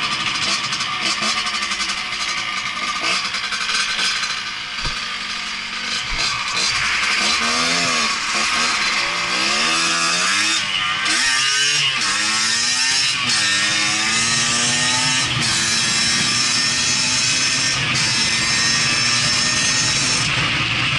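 Yamaha DT 50 MX's 49 cc two-stroke single buzzing as the bike is ridden, over a steady hiss. Through the middle of the stretch the revs rise and fall again and again with throttle and gear changes.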